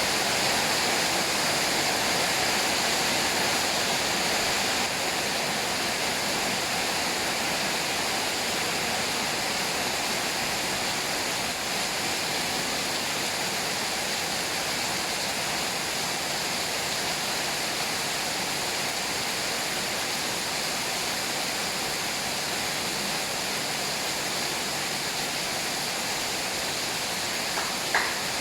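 Steady rush of flowing water, with one short click near the end.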